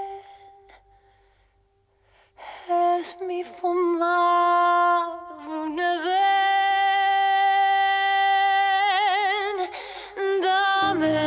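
A woman's solo voice singing unaccompanied after a short pause, holding long notes with a wide vibrato. Low instrumental accompaniment comes in just before the end.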